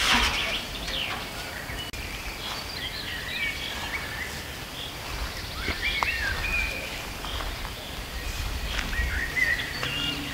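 Small songbirds singing, a string of short chirps and whistles, with a low rumble on the microphone now and then.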